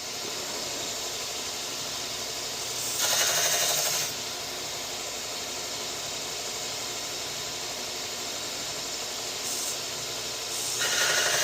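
Belt grinder running steadily with a worn fine-grit belt, about 1000 grit, as a fabric-shear blade is polished: the blade is pressed to the belt twice, for about a second each, giving a louder grinding hiss over the motor and belt noise.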